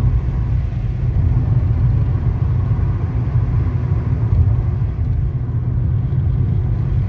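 Steady low rumble of a car driving along at road speed, engine and tyre noise heard from inside the cabin.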